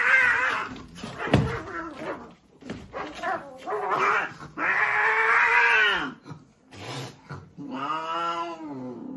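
Two cats fighting: several drawn-out, wavering yowls and growls, the longest lasting over a second, with shorter calls between and a sharp thump of the scuffle about a second and a half in.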